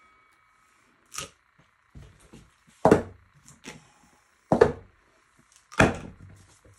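Four sharp knocks a second or two apart, from hard objects being handled and set down on a work surface, over a faint steady hiss.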